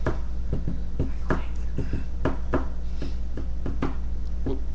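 Improvised percussive beat of short sharp clicks and taps, about four a second, over a steady low electrical hum.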